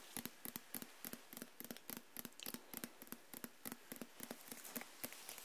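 Fingernails tapping quickly and irregularly on the cover of a book held right against the microphone, a close, crisp run of small clicks.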